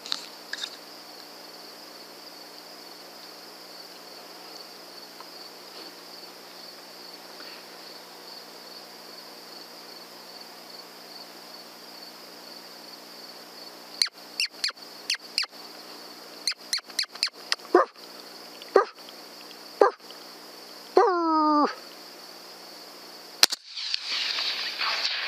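Coyote barking: after a stretch of only night insects chirring, a quick run of sharp barks starts about halfway through, then a longer call that falls in pitch. A single sharp crack follows near the end.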